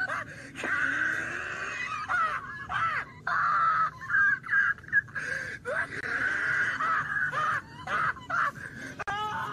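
A man's high-pitched, wheezing laughter, coming in stretches with short breaks.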